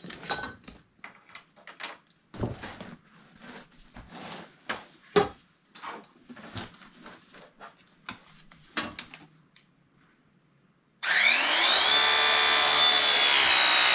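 Scattered clicks and knocks of parts and tools being handled, then a battery-powered tool's motor starts near the end with a quick rising whine and runs steadily under load for a few seconds.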